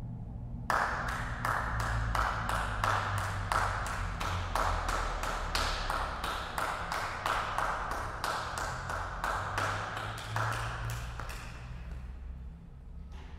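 A small number of people clapping at a steady pace of about three claps a second, ringing in the church's reverberation. The clapping starts suddenly just under a second in and fades near the end, over a low steady hum.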